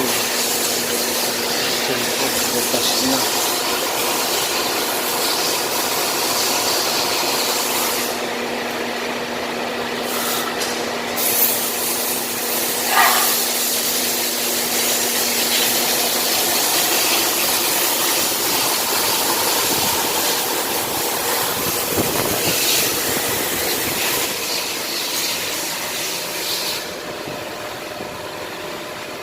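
Steady mechanical running noise with a hiss and a low steady hum, with a couple of brief louder moments near the middle.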